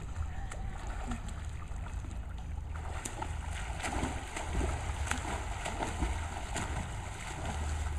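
Swimmers splashing and kicking through pool water, an uneven watery splashing over a steady low rumble.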